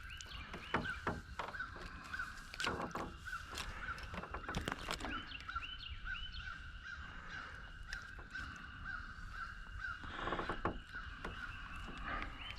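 A bird calling over and over in short, evenly repeated notes, about two or three a second, with scattered clicks and knocks.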